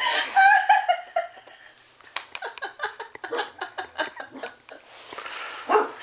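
A woman laughing hard: a high, wavering squeal of laughter at first, then a long run of short breathy laughs.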